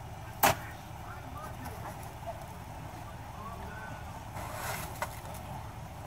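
A single sharp knock about half a second in as a plastic snow shovel is banged down, then low steady background noise with a brief rustle of snow being pushed about four and a half seconds in.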